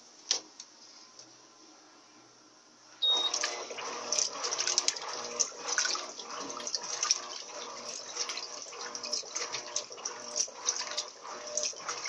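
Turbo 13 kg top-loading washing machine (Electrolux LT13B) agitating its load in rinse water at medium level: water sloshing and churning in the drum. It starts suddenly about three seconds in, after a near-quiet moment with a single click.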